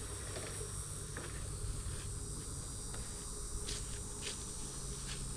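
A steady high hiss with a low hum beneath it, and a few faint clicks and taps, about a second in and twice near the end.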